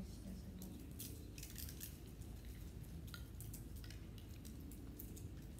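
Faint scattered crinkles and small clicks of several people peeling open and handling prepackaged plastic communion cups, over a low steady hum.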